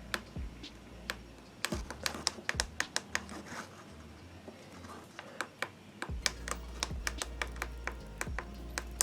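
Irregular series of light, sharp clicks and taps, like small plastic buttons being pressed and a gadget being handled. A low hum underneath cuts out about two seconds in and comes back about six seconds in.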